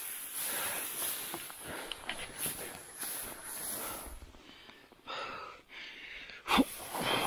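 Dry grass and reeds rustling as a beaver carcass is dragged through them, with a man breathing hard from the effort of hauling the heavy animal. A brief louder noise comes near the end.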